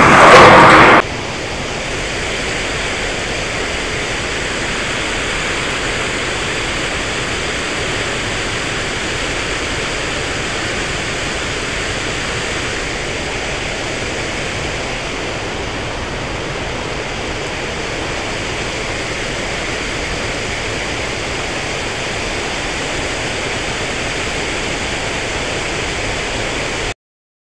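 A small river's water rushing and splashing in a steady, even hiss. This follows a loud burst of arcade-machine sound that cuts off about a second in, and the rushing stops abruptly near the end.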